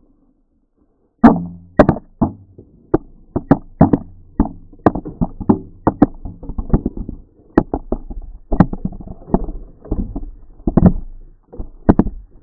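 Irregular sharp knocks and clicks, one to two a second, from the wreckage of a crashed RC plane being handled, heard through its onboard action camera. The sound starts about a second in, after a gap of silence.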